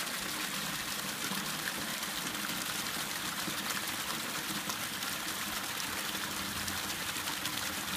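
Spring water pouring steadily from a small pipe into a 5-gallon plastic water jug, mixed with the spring's runoff trickling over rocks.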